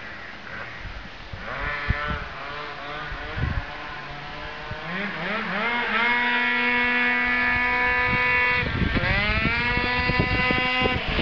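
Tuned 70cc two-stroke Piaggio scooter engine with a Stage6 R1400 cylinder revving up hard, its pitch climbing and then holding a high steady whine. Near the end it drops briefly and climbs again. The engine is running with a torn, leaking intake manifold.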